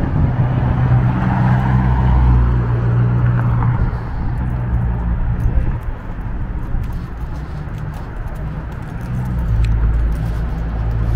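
Street traffic: a car passes through the intersection over the first few seconds, over a steady low rumble that runs throughout.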